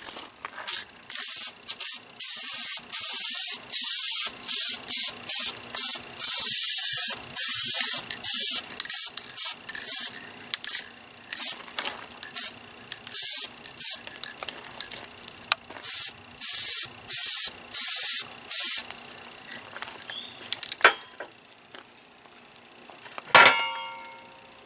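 Aerosol spray can of Rust-Oleum red oxide primer hissing in many short bursts, one after another, stopping at about 19 seconds in. Near the end, a single metal clank with a brief ring.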